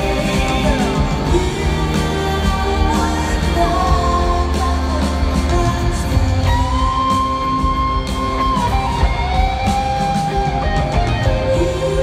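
Live rock band playing through an arena PA: electric guitars, bass and drums with singing, recorded from within the crowd.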